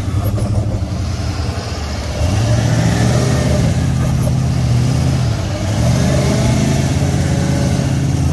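Duramax diesel engine of a GMC Sierra HD pickup revving hard under load as it tries to pull a stuck motorhome out on a tow strap, its tyres spinning and digging in soft sand. The revs climb about two seconds in, ease briefly midway, then climb again.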